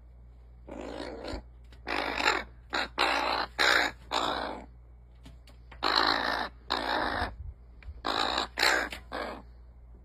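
A crow cawing, about eleven caws in three bunches: six over the first few seconds, two more around the middle, and three near the end.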